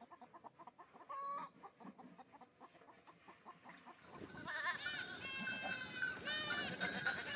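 A herd of goats bleating, many calls overlapping, starting about four seconds in after a few seconds of faint sound.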